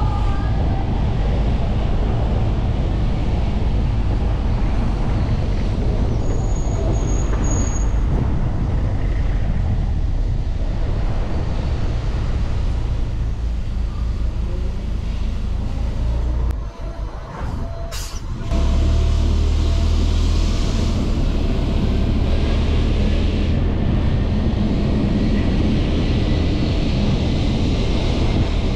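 Car driving in city traffic: steady low engine and road rumble. It drops briefly with a click about two-thirds of the way through, then comes back stronger.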